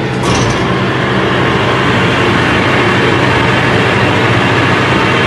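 Wolfking C.250 UNI industrial meat grinder running empty: a steady electric-drive hum under a broad mechanical whirr as the hopper's feed screws turn. About a third of a second in, the sound gets louder and brighter, then holds steady.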